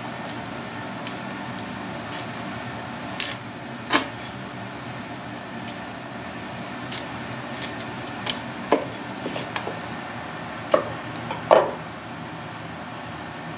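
A few scattered sharp clicks and knocks of a kitchen knife on snow crab shell and a wooden cutting board as crab legs are cut open, the loudest pair near the end, over a steady kitchen hum.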